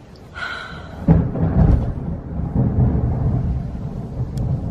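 A loud roll of thunder from a heavy thunderstorm: it starts about a second in and rumbles on deep and low, swelling and easing.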